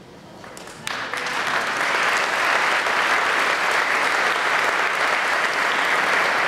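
Audience applauding, breaking out suddenly about a second in and holding steady.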